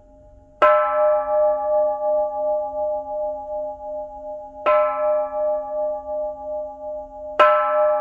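Japanese bronze temple bell (bonshō) struck three times on its lotus-shaped boss with a wooden mallet: less than a second in, about halfway, and near the end. Each strike is followed by a long ringing of several tones over a low hum, the ringing wavering in loudness as it fades.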